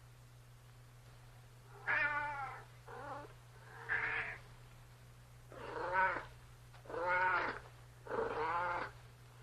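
A cat meowing repeatedly: six separate calls of about half a second each, with short pauses between them.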